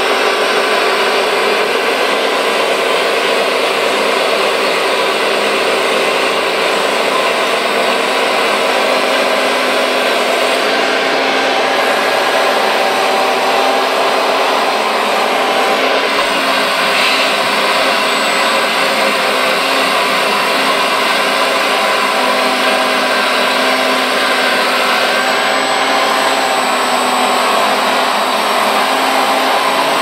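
Steady, loud electric-motor whine of a radio-controlled hydraulic Liebherr 956 excavator model's hydraulic pump as it digs, mixed with the motors of other RC construction models.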